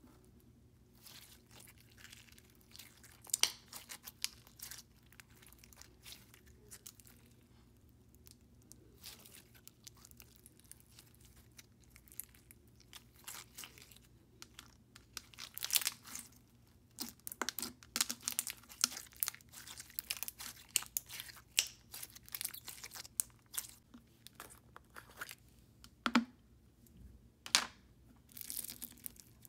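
Clear, thick slime with sugar beads being worked by hand, giving faint, irregular clicks, pops and crackles. They are sparse at first and much busier in the second half.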